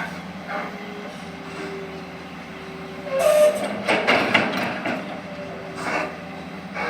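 Excavator's diesel engine running steadily. About three seconds in comes a louder stretch of rumbling and clanks, opened by a short squeal, as the machine works soil into the truck.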